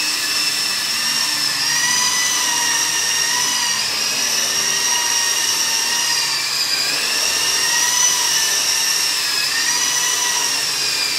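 Double Horse radio-controlled toy helicopter in flight: a steady high electric-motor whine with rotor hum, its pitch slowly wavering up and down.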